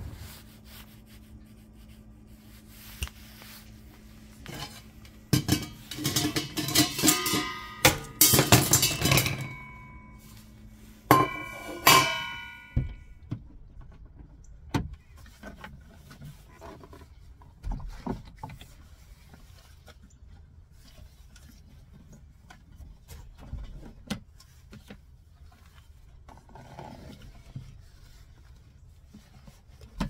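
Metal kitchenware being handled and packed: clattering with ringing metallic clinks, loudest between about six and thirteen seconds in, then quieter bumps and handling noises.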